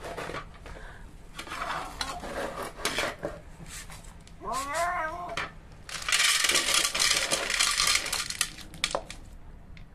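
A cat eating dry kibble from a plastic bowl, with scattered clicks and rattles of the pellets, and a short meow about halfway through. About six seconds in, dry kibble is poured onto a plastic plate: a dense rattle lasting about two seconds, the loudest sound here.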